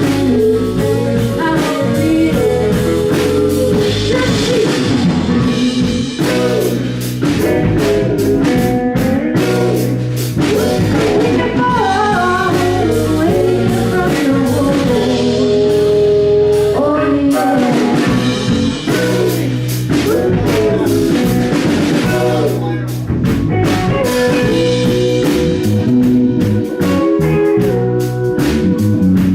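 Live band playing a song with singing, electric guitar, bass and drum kit.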